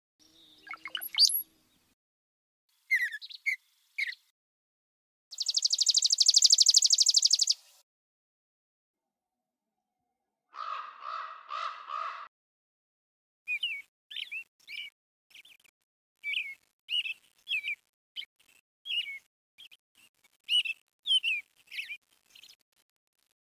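Wild birds calling: a loud buzzy trill a few seconds in, a harsh four-note call about halfway through, then a long run of short, quick chirps.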